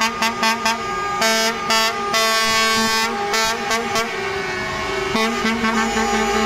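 Truck air horns from several passing semi-trucks sounding together: a quick run of short toots, then long blasts with brief breaks, several horn pitches overlapping.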